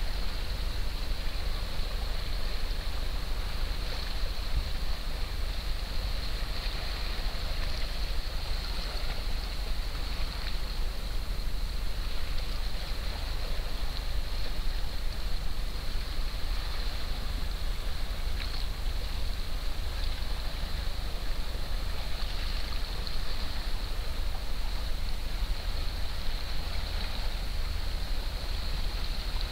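Steady wind rumble on the microphone, with a hiss of sea water and slush ice along a rocky shore.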